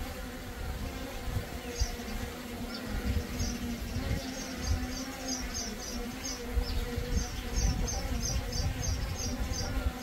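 DJI Mini 3 Pro drone hovering, its propellers giving a steady buzzing hum, with gusty wind rumbling on the microphone. From about halfway through, a quick series of high chirps repeats about three times a second.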